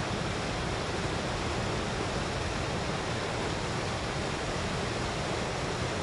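Mountain river rushing steadily over a small waterfall and down a narrow rocky chute, a constant roar of white water.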